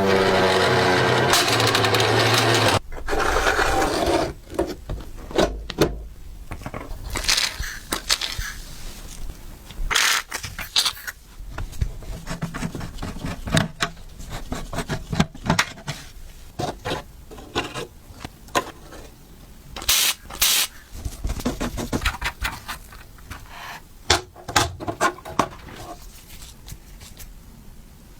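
Scattered clicks, taps and scrapes of the old tinplate horse racing toy's metal parts being handled and worked on, with a loud pitched, gliding sound in the first few seconds.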